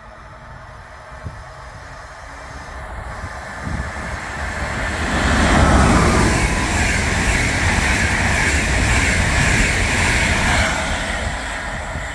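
EuroCity passenger train, a locomotive hauling Czech Railways (České dráhy) coaches, passing at speed. Its rumble builds, becomes loud about five seconds in as the locomotive reaches the microphone, and the coaches rush past with steady wheel-on-rail noise that begins to fade near the end.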